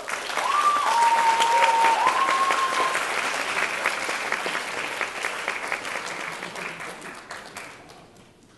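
Theatre audience applauding at the end of a song, with a few held cheers in the first three seconds; the clapping dies away near the end.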